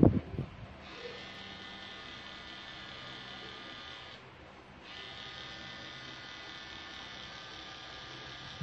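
Pen-style tattoo machine buzzing steadily while needling the skin. It stops for a moment about four seconds in, then starts again.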